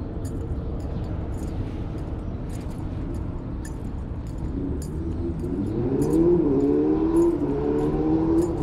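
Road traffic rumble with a vehicle engine speeding up on the street alongside, its pitch rising about halfway through and then holding as the sound grows louder. Light metallic jingling ticks come about twice a second, in step with walking.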